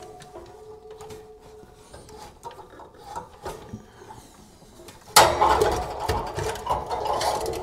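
An air compressor's electric motor being twisted and pulled off its mount, metal on metal. Quiet knocks and handling at first, then about five seconds in a sudden loud clunk followed by a couple of seconds of scraping and rattling as the motor comes free.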